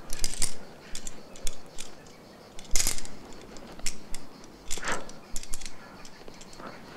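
Metal climbing gear clinking and jangling: carabiners and quickdraws on a rock climber's harness knocking together as he moves up the wall. It comes as an irregular run of sharp clicks, with louder clinks about three and five seconds in.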